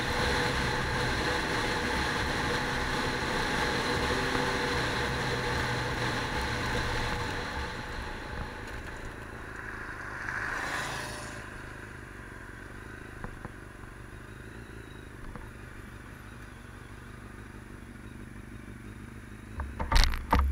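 A motor vehicle engine running steadily, then fading away about seven seconds in; a rushing swell rises and falls a little later, and a couple of sharp knocks sound near the end.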